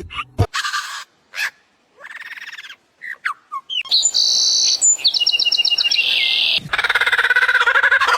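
Birds calling: high chirps and whistled notes, including a rapid trill of about ten quick notes about five seconds in, then a dense, fast chattering from near seven seconds on.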